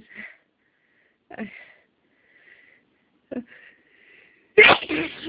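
A person's short, sharp sniffing in-breaths while trying to hold back a sneeze, then a loud sneeze near the end.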